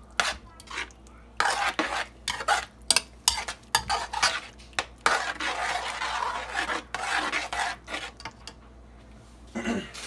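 Metal spoon stirring a thick ground-beef and tomato sauce in a metal pot, scraping and knocking against the pot's sides and bottom in irregular strokes. The stirring stops about eight seconds in.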